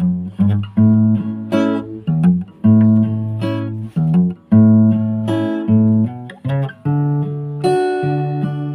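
Background music played on acoustic guitar: plucked and strummed notes in a steady rhythm.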